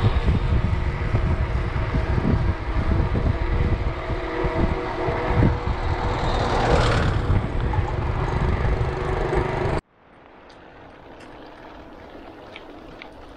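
Wind buffeting an action camera's microphone with rolling and rattling from a moving bicycle, a louder rushing swell about two thirds of the way through. The noise cuts off abruptly about ten seconds in, leaving a much quieter background with a few faint clicks.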